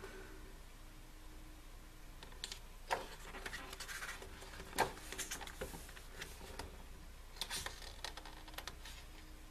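Pages of a thick album photobook being turned and handled: a few soft paper rustles and light taps, the clearest about three, five and seven and a half seconds in.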